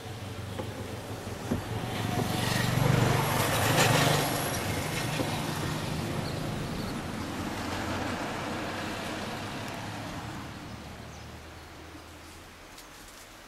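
A motor vehicle driving past: its engine and tyre noise swell to a peak about three to four seconds in, then slowly die away.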